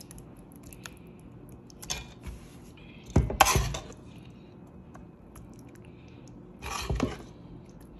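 A metal spoon clattering and scraping against a pot as thick, creamy macaroni and cheese is scooped out and dropped into a cast-iron skillet. The spoon knocks three times, loudest about three and a half seconds in.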